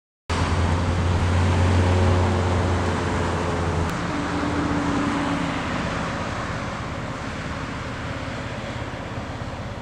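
Road traffic: a car going by on a paved road, engine hum and tyre noise, loudest about two seconds in and then slowly fading.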